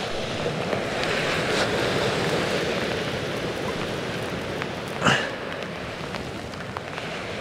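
Steady rushing noise of wind and sea surf on an open beach, with a brief sharper sound about five seconds in.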